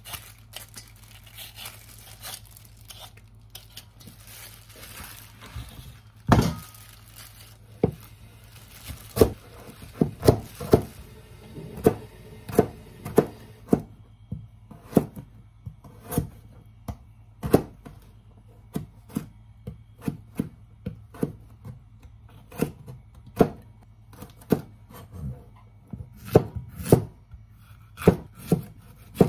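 A hand vegetable peeler scraping strips off a carrot for the first several seconds. Then a kitchen knife chops on a plastic cutting board in a long run of separate knocks, about one every half second to a second, as a carrot is cut into thin julienne strips and, near the end, a zucchini is sliced. A steady low hum runs underneath.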